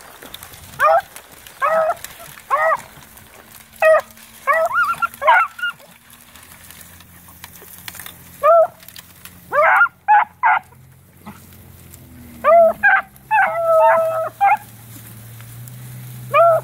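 Beagles baying while running a rabbit: short, bending bawls about a second apart, in uneven bursts with pauses between them.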